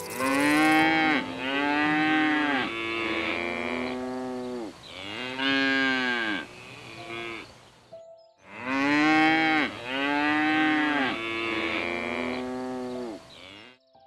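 A hoofed animal bellowing: a series of long, deep, moo-like calls, each rising then falling in pitch, with a short break about eight seconds in.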